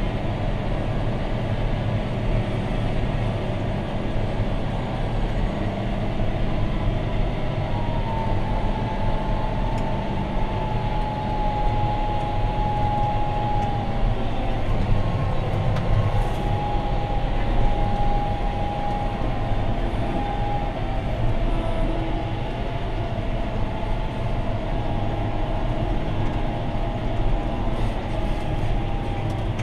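John Deere 6215R's six-cylinder diesel engine running steadily under load while ploughing, heard inside the cab, with a faint high whine that drops a little in pitch about eight seconds in.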